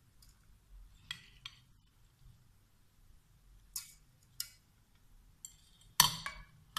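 A metal spoon clinking and scraping against a pot while spreading uncooked rice over a layer of fried meat and vegetables, several light clinks a second or so apart. About six seconds in comes a much louder clatter as the utensil is put down on a plate.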